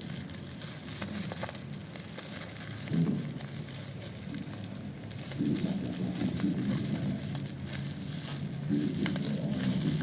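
Packaging being handled, with irregular crinkling and crackling as a box is opened.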